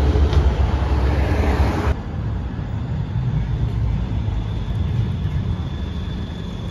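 City street traffic with trams: a loud low rumble of a car and tram passing, cut off suddenly about two seconds in. Then quieter street noise as another tram approaches, with a faint steady high tone.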